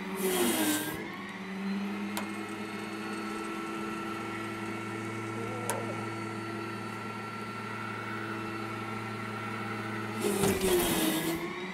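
Electric mini loader's motors running under heavy load, a steady electric hum with several fixed tones while it strains to lift a full bucket of sand. A hissy rush with a dipping pitch comes at the start and again about ten seconds in.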